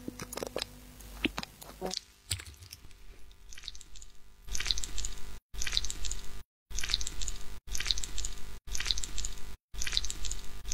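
A few drips and light taps of a glass dropper in a small glass beaker, then a soft brush swept over a wet, serum-soaked mesh lip mask in six crisp, squishy strokes about a second apart, each cut off by a sudden silence.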